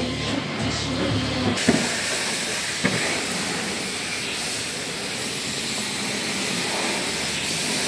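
Music ends about a second and a half in and gives way to a steady hiss, with two short knocks just after.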